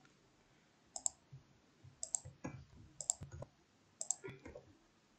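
Scattered clicks of a computer keyboard and mouse: single presses and short clusters of a few, separated by quiet gaps.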